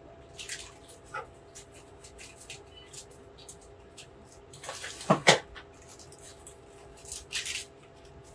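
Plastic candy bag crinkling and rustling as marshmallow peanuts are shaken out onto a tray. A short pitched vocal sound about five seconds in is the loudest thing.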